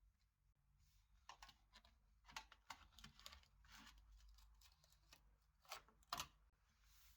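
Faint handling noises: a run of light clicks and scrapes, with two sharper clicks near the end.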